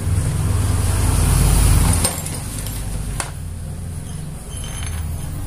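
A motor vehicle engine running, loud for about two seconds and then dropping to a quieter low drone, with a couple of light clicks.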